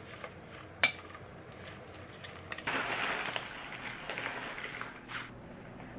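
Kitchen handling sounds: a sharp clink of dishware just under a second in, among lighter clicks. About two and a half seconds in, a steady rushing hiss starts and lasts about two seconds before cutting off.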